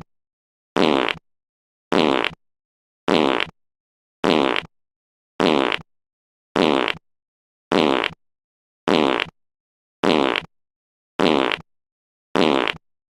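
A fart sound effect looped over and over: the same short, buzzy fart repeats about every second, with silence between each one.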